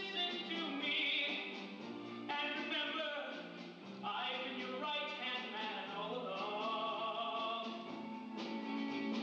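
Live rock-opera stage performance: singing over band accompaniment.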